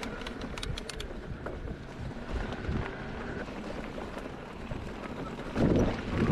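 Wind buffeting the microphone over the rattle of an e-mountain bike rolling along a trail, with a few sharp clicks in the first second. The low wind rumble grows louder near the end.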